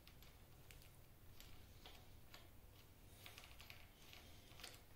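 Faint, irregular light metallic clicks and ticks of a small nut being turned by hand on a stud of a lathe's compound rest.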